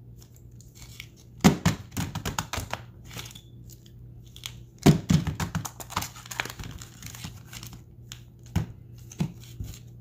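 Sealed Magic: The Gathering booster packs being shuffled by hand, their foil wrappers crinkling and crackling against each other. The loudest bursts come about a second and a half in and again about five seconds in, with smaller ones near the end.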